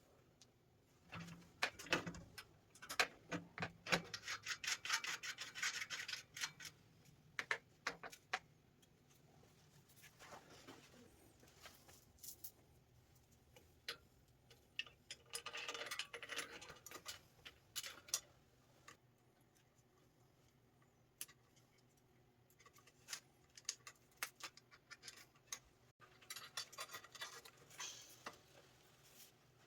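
Intermittent rubbing and scraping in three spells, with scattered sharp clicks and taps between them.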